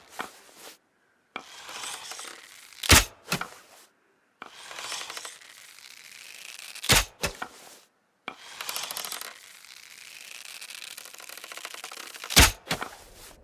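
Bow and arrow sound effect, three times over: a long scraping, creaking draw, then a loud sharp snap as the arrow is loosed, followed a moment later by a smaller knock.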